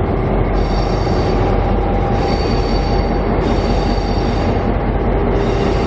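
Spirit of the Outback passenger train rolling in along a platform, with a steady low rumble and high-pitched wheel squeal that comes in four spells of about a second each.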